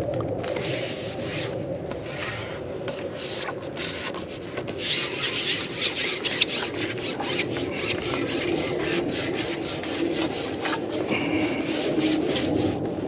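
Carbon fishing pole being shipped back out, its sections rasping as they slide through the hands and over the rest in a long run of quick rubbing strokes, thickest around the middle, over a steady low rumble.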